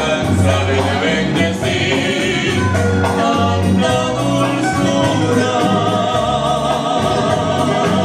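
A man and a woman singing a song together over instrumental accompaniment, the melody held out on a long, wavering vibrato note in the second half.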